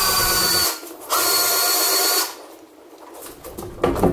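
Cordless drill driving a scissor jack's screw to raise the car, running at a steady whine in two stretches of about a second each with a short pause between. It falls quieter after about two seconds, with a few metallic clinks near the end.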